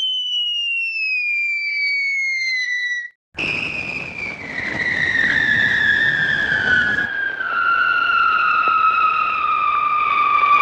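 Cartoon falling sound effects: a high whistle sliding slowly down in pitch, cutting off about three seconds in, then a second, longer falling whistle starting lower, with a rushing hiss beneath it.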